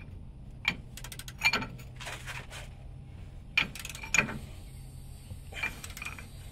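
Wrenches and a steel cheater-bar pipe on a shock's 17 mm mounting bolt, tightening it down: bursts of metallic clicks and clinks, several times, over a steady low hum.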